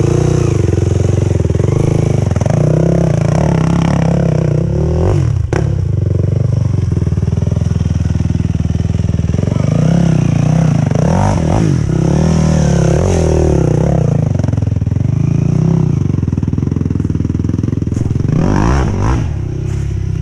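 Quad bike engine running close by, idling with an uneven beat. The throttle is blipped, revving up briefly a little past the middle and again near the end.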